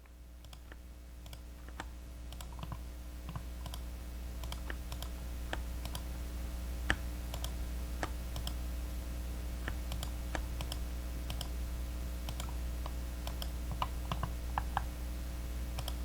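Typing on a Zoom75 mechanical keyboard with Kailh Heavy Burnt Orange tactile switches and a fully foam-filled case: separate key clacks at an irregular pace, a few louder than the rest. A steady low hum runs underneath, and the sound grows louder over the first few seconds.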